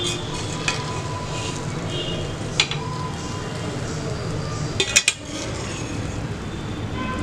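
A steel ladle stirs and lifts cooked biryani rice in a stainless steel pot, with soft scraping and a few sharp metal clinks against the pot. The loudest clinks come in a cluster about five seconds in, and the pot rings briefly after some of them.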